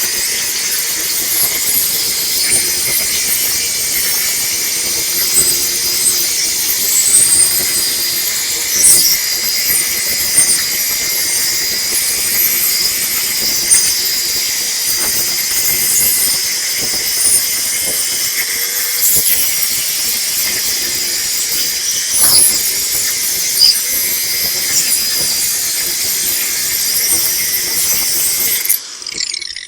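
Ryobi One+ cordless angle grinder grinding off an old boat fairlead: a steady, high-pitched grinding with brief louder screeches as the disc bites. It stops abruptly near the end.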